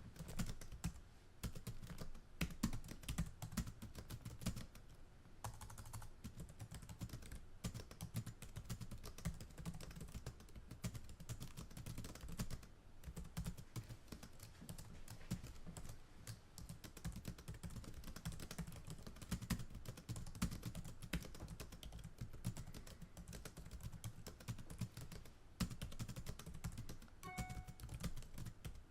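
Continuous typing on a computer keyboard: rapid, irregular key clicks with brief pauses every few seconds.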